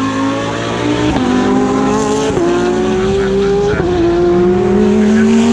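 GT3 race car engine accelerating hard through the gears: the pitch climbs steadily and drops sharply at three upshifts about a second or so apart, climbing again after each.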